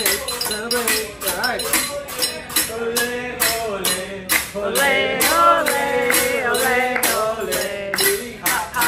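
A man singing, with a fast, even tapping beat running under the voice.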